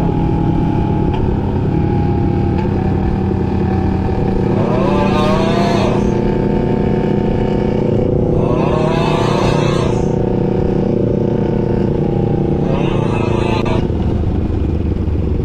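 250 cc parallel-twin sport motorcycle engine running at a steady cruise while riding, its pitch holding level with no revving. Three short voice-like sounds break in about a third, two thirds and most of the way through.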